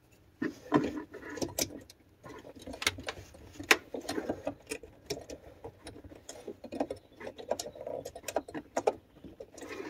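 Irregular small plastic clicks, taps and scrapes as fingers handle an automotive relay and push it into the socket of a trunk-mounted fuse and relay box.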